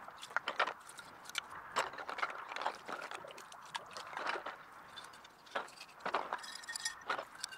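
Glass bottles clinking against one another and water splashing and sloshing as bottles are lifted out of a tub of soapy water and dunked in a bucket of rinse water. The knocks and splashes come irregularly throughout.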